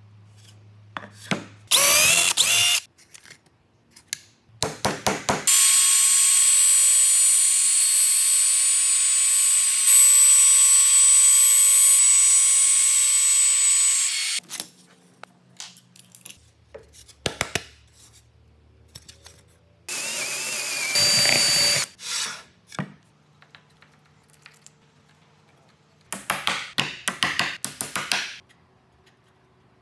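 Makita RT0701C compact trim router running for about nine seconds as it is guided over a pine panel, a steady high whine that stops abruptly. There are shorter bursts of tool noise before and after it, and a quick series of hammer taps near the end.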